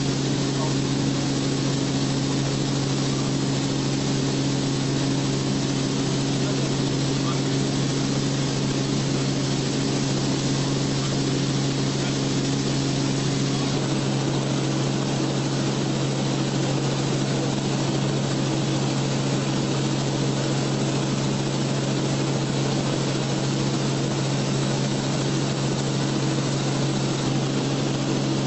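Steady drone of a small aircraft's engine and propeller heard on board: a low hum with a strong rushing noise over it. The hum's upper tones shift slightly about halfway through.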